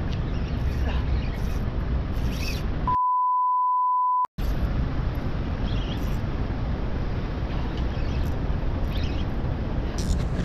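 Wind noise on the microphone, broken about three seconds in by a censor bleep: a single steady high tone lasting about a second and a half, with all other sound cut out under it.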